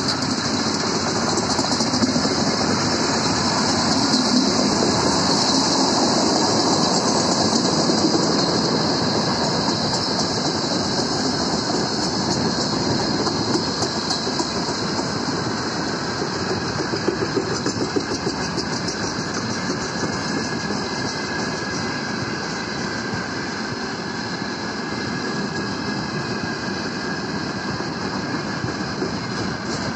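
Freight wagons (refrigerator cars, boxcars and gondolas) rolling past at speed: a steady rumble of steel wheels on rail with clickety-clack over the rail joints, easing slightly in the second half.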